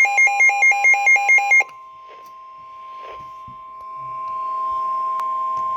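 Rapid electronic alert beeping, about five beeps a second, stops about a second and a half in. It gives way to the steady 1050 Hz NOAA Weather Radio warning alarm tone, which grows louder and signals that a warning is about to be read.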